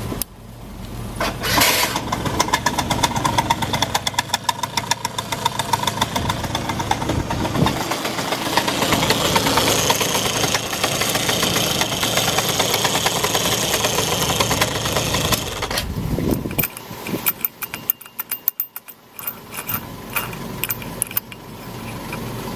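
Yamaha Vino moped engine starting and running with a dense, fast rattling tick: the abnormal engine noise that is to be fixed. Around 16 seconds in the running sound drops away to sparser clicks and rattles.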